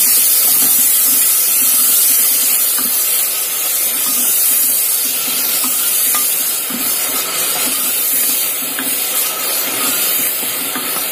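Tomatoes and whole spices sizzling in hot mustard oil in a pressure cooker, stirred steadily with a wooden spatula.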